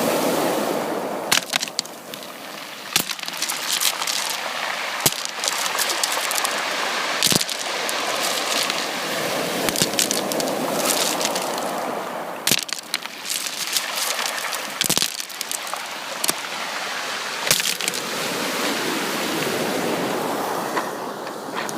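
Sea waves breaking and washing on a shore, the surf swelling and easing every few seconds, with sharp clicks and cracks scattered through it.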